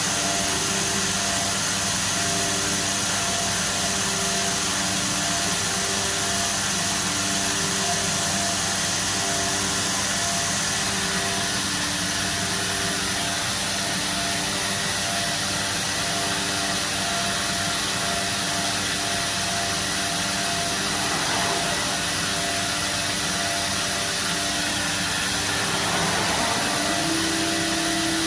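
C.R. Onsrud 122C16C CNC router and its shop equipment running: a steady rushing machine noise with a low hum and a tone that pulses on and off about every second. Near the end a steady higher hum starts.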